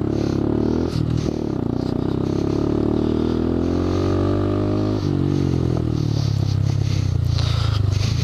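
Honda Grom's 125 cc single-cylinder engine pulling hard along a dirt trail. Its pitch rises steadily for a few seconds, then drops sharply about five seconds in and runs lower and steadier.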